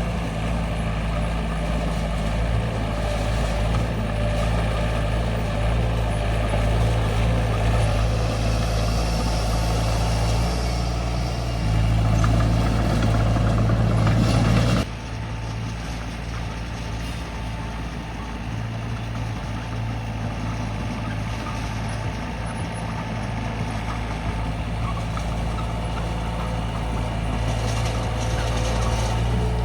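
D20 bulldozer's diesel engine running steadily under load. About halfway through, the sound cuts abruptly to a quieter, steady run.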